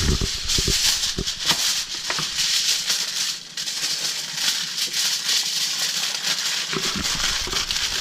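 A seasoning shaker being shaken steadily over a catfish fillet, its grains rattling in a continuous hiss, with a few light knocks in the first couple of seconds.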